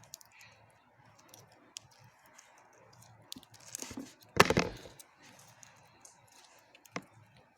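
Handling noises: scattered small clicks and taps, with one louder knock and rustle about halfway through.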